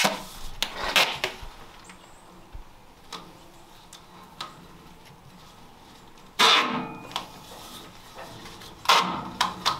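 Duct tape ripping off the roll in several pulls as it is wrapped around a flexible aluminium duct joint. The loudest and longest pull comes about two-thirds of the way through.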